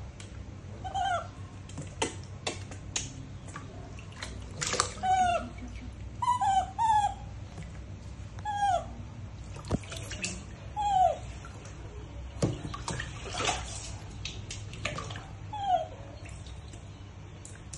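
Baby macaques giving short whimpering calls, each falling in pitch, about a dozen of them a second or two apart, with light splashing of bath water in a plastic tub.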